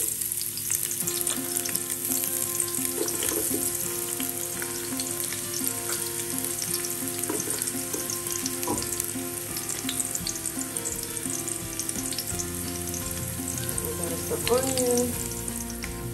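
Sliced red onions sizzling and crackling in hot oil in a large aluminium pot, with more onion dropped in by hand as it fries. A brief wavering sound rises above the sizzle about a second and a half before the end.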